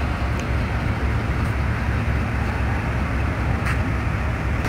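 Steady low rumble of a passenger train's diesel engine running while the train stands at the platform, with a few faint clicks.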